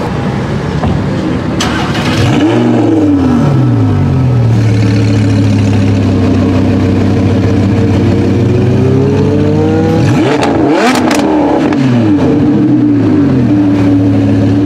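Lamborghini Huracán LP610-4's V10 revved while parked, through an Fi valvetronic exhaust with catless downpipes. A sharp rev about two seconds in falls back to a steady idle. The pitch then climbs slowly into a hard rev about ten seconds in, with a shorter blip just after, before it settles again.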